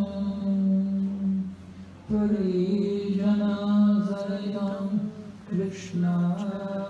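A voice chanting a Sanskrit verse in a slow melody, holding long notes phrase by phrase with short breaks between.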